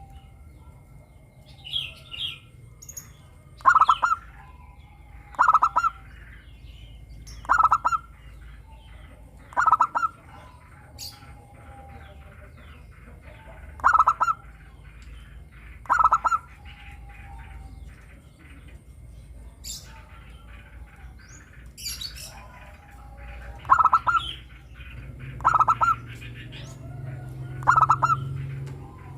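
Zebra dove (perkutut) singing: a short, rapid, stuttering cooing phrase repeated about every two seconds, with a pause of several seconds about two-thirds of the way through. Faint high chirps of small birds sound in between.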